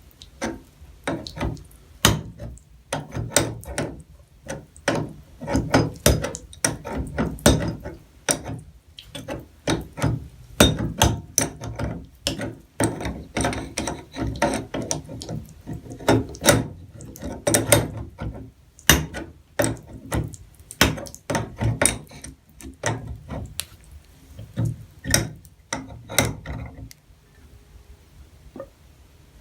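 Hand tools working on a bathtub faucet's cartridge and fittings during reassembly: a run of irregular metallic clicks and knocks with short pauses between, thinning out near the end.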